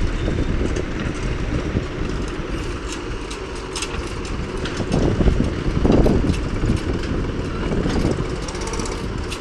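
Diesel engines of a JCB backhoe loader and farm tractors running, with scattered metallic clanks; the sound swells loudest about five to six seconds in.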